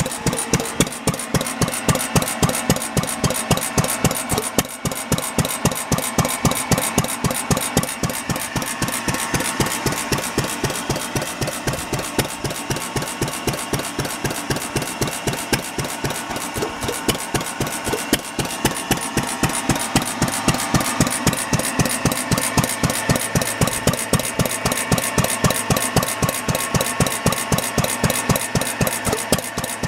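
Fairbanks Morse ZC stationary single-cylinder engine running steadily after repairs, with a rapid, even exhaust beat and mechanical clatter.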